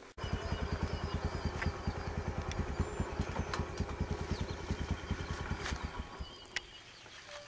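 A small engine running at idle with a rapid, even thumping, starting abruptly and fading away over the last couple of seconds.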